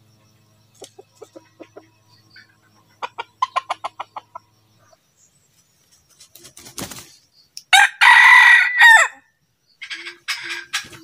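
Red junglefowl rooster clucking in a quick series, then a burst of wing flapping about six seconds in, followed straight away by one short, loud crow; more clucking near the end.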